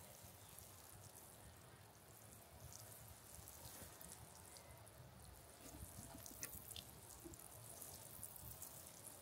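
Near silence: a faint background hiss, with a few soft ticks in the second half.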